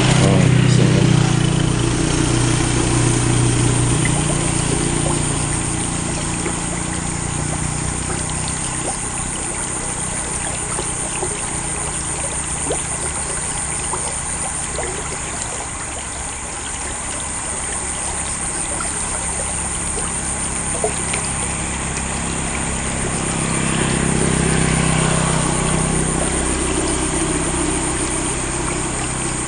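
Motorcycles passing by: one engine fades away over the first several seconds and another swells and fades about 24 seconds in, over a steady trickle of running water.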